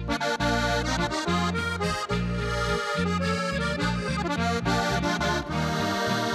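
Diatonic button accordion playing an instrumental break in a Slovenian folk-pop (narodno-zabavna) song, over bass and guitar accompaniment, with no singing.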